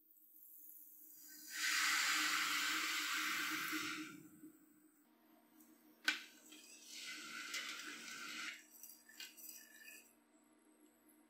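Granulated sugar poured from a glass bowl into a steel pot of water: a steady hiss lasting about two seconds. Then a sharp clink and a wire whisk stirring the sugar water, swishing and clicking against the pot, over a steady low hum.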